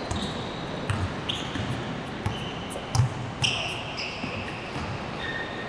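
A basketball bouncing on a court a few times, with short high squeaks of sneakers on the floor.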